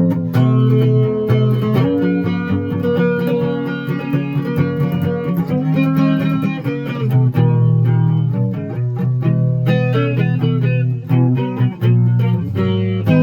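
Guitar music: rapid plucked notes over a low bass line.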